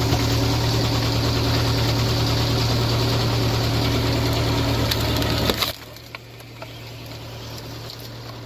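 Wood chipper running hard, its engine humming steadily under the noise of wood being shredded. About five and a half seconds in the sound cuts off abruptly to a quieter engine running steadily.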